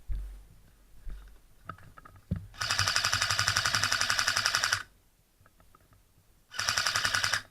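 Airsoft electric gun firing on full auto: a burst of about two seconds, then a shorter burst of under a second, each a rapid, even rattle of shots.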